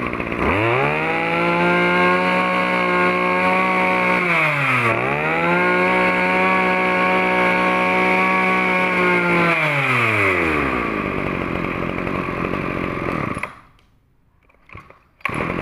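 34cc TH3400 two-stroke brush cutter engine revved up and held at high revs, with a quick dip and re-rev about five seconds in. It drops back to a low running sound at about ten seconds and cuts out after about thirteen seconds, and the engine sound comes back abruptly near the end.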